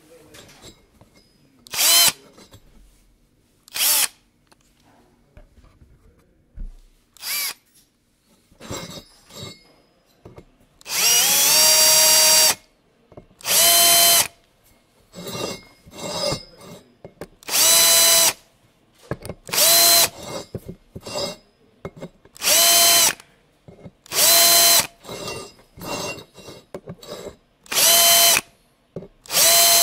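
Electric screwdriver motor running in a dozen or so short bursts while finishing holes. Each burst is a steady whine that starts and stops abruptly, mostly under a second long, with a longer run of about a second and a half a little before halfway.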